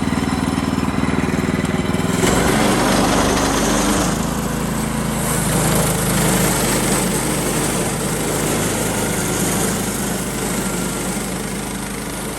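Woodland Mills portable bandsaw mill running, a small gas engine at speed with the band blade sawing through a log. Its note changes about two seconds in and again near four seconds.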